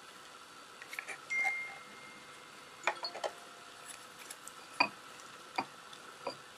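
Disposable wooden chopsticks clicking and tapping against a ceramic plate as they work a piece of canned saury: a scatter of light clicks with a brief high squeak about a second and a half in, the sharpest tap coming near five seconds.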